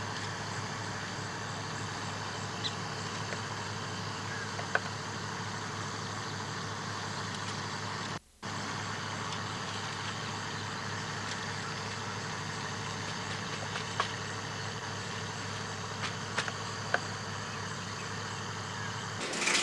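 A steady, low mechanical hum with a few faint clicks; it cuts out completely for a moment about eight seconds in.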